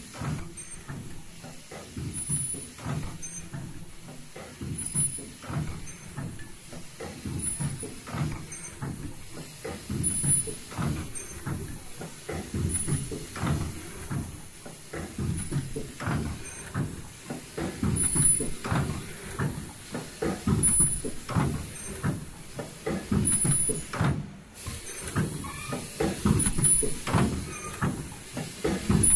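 Automatic KN95 mask production line running: steady mechanical clatter of rollers and feed parts, swelling about every two seconds as the line cycles, each cycle bringing a short high-pitched tone.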